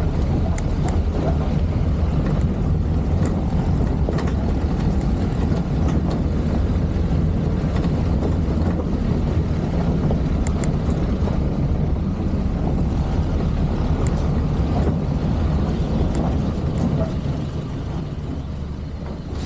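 A vehicle driving along a dirt road: steady low engine and tyre rumble, with scattered light clicks. It gets a little quieter near the end.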